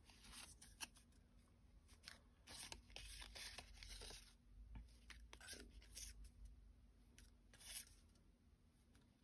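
Faint rustling and light clicking of die-cut cardstock tags and paper ephemera being shuffled and handled.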